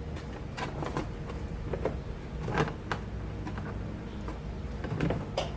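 Plastic rear side trim panel of a Dodge Challenger's interior being pried off, its retaining clips popping loose in a series of sharp clicks and knocks. The loudest pops come about two and a half seconds in and again near the end.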